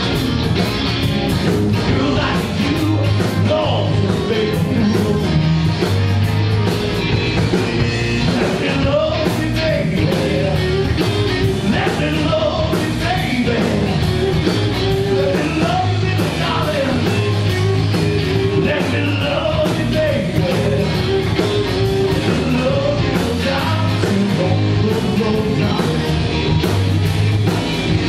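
Electric blues band playing live and loud: two electric guitars, electric bass guitar and a drum kit keeping a steady beat.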